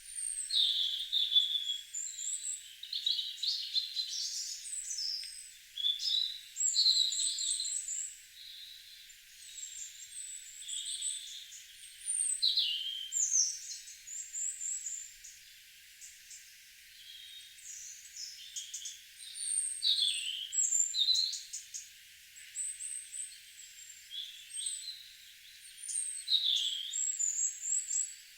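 Several songbirds singing in a garden: high chirps and short whistled phrases that rise and fall in pitch, coming in clusters every few seconds with brief pauses between.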